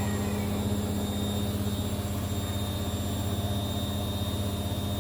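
A steady low mechanical hum with a faint high whine over it, unchanging throughout.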